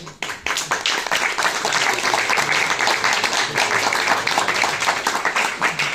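Audience applauding: many hands clapping together in a dense, steady patter that begins just after the start.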